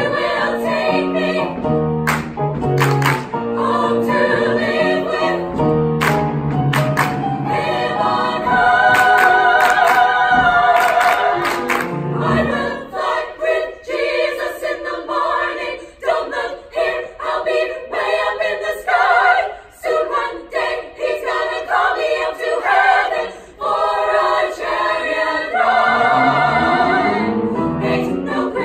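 Women's chamber choir singing in harmony, with sharp hand claps through the first half. About halfway in the low part drops out, leaving the higher voices, and it comes back near the end.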